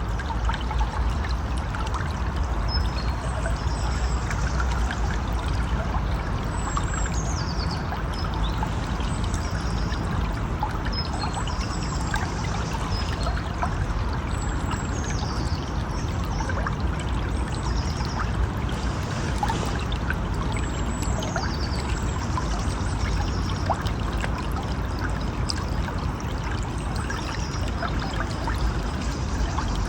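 A river or stream flowing with a steady rush and trickle of water. Short high chirps that fall in pitch come every couple of seconds.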